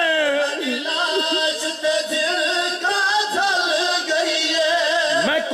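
Male voice singing a mournful noha (Shia lament) through a microphone, drawing out long wavering notes without a break.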